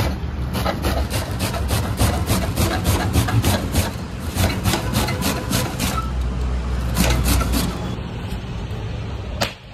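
Rapid, evenly spaced strokes of food preparation, about five a second, stopping briefly around six seconds in and ending near eight seconds, over a low steady rumble.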